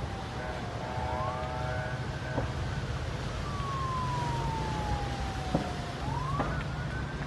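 Emergency vehicle siren wailing: the pitch rises, falls slowly over about three seconds and rises again near the end, over a steady low rumble. A few short sharp cracks come through in the second half.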